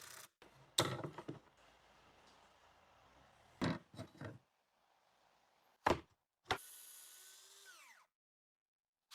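Sharp knocks of a tool against wood: one about a second in, a quick cluster around four seconds, two more near six seconds. These are followed by about a second and a half of scraping, with tones falling in pitch.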